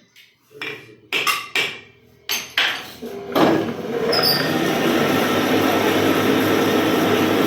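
Several sharp hammer blows on metal while the lathe housing is being set. About three and a half seconds in, the lathe machine starts and runs steadily with a dense, even drone.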